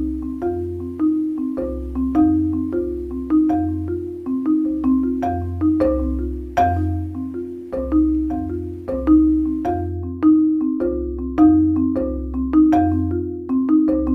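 Background music: marimba-like mallet percussion playing a steady repeating pattern, about two notes a second, over a low bass line.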